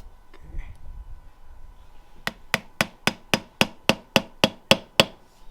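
A hammer striking a metal punch eleven times in quick, even succession, about four blows a second, to drive a stuck part out of a BMW ZF automatic transmission.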